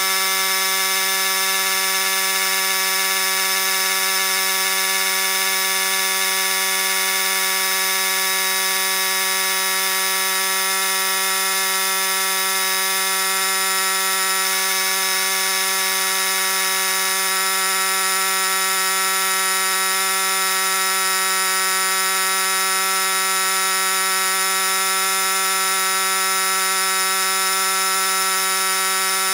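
Vaclife VL738 portable tire inflator's small electric air compressor running steadily with an even, buzzing hum, pumping up a car tire as the pressure builds.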